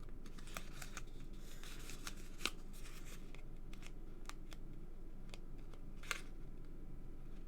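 Paper handling: cardstock and the backing strip of double-sided tape being lifted and peeled, giving scattered small clicks and crackles, with two sharper ticks about two and a half and six seconds in.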